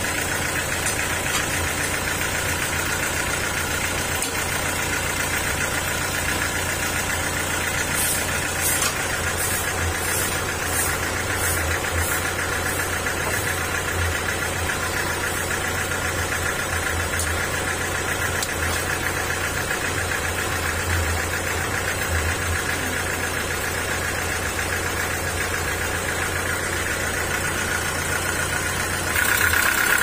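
Stationary diesel engine powering a band sawmill, running steadily with no cut under way. A run of light ticks comes about a third of the way in, and the engine grows louder just before the end.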